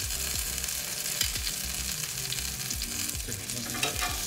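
Breaded chicken cutlet shallow-frying in a cast iron skillet: a steady sizzling hiss. A utensil clicks against the pan once about a second in and a few times near the end, as the cutlet is handled.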